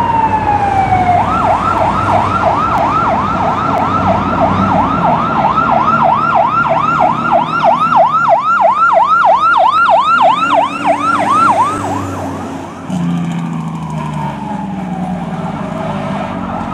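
Fire rescue truck's electronic siren winding down from a wail, then switching to a fast yelp, about three sweeps a second, for some ten seconds, with the truck's engine running underneath. Near the end the siren, fainter, winds down once more in a slow wail.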